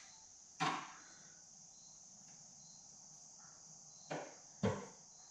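Three short, sharp knocks, the last about four and a half seconds in the loudest, over a faint steady chirring of crickets.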